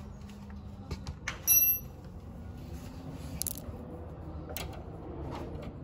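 Small metal parts of a piercing valve clinking as they are handled, with one bright ringing clink about one and a half seconds in and a few lighter clicks later.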